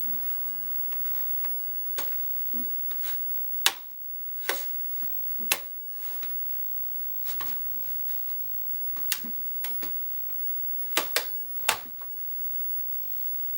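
Plastic snap clips of an ASUS X555L laptop case clicking into place one after another as the panel is pressed down around its edge: about a dozen sharp clicks at irregular intervals, some in quick pairs.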